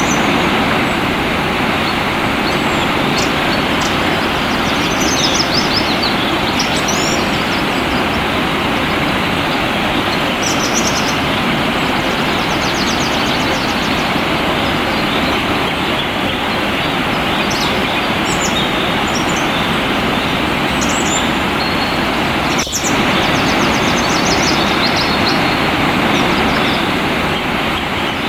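Steady rushing of flowing water, with small birds giving short, high chirps and twitters every few seconds over it.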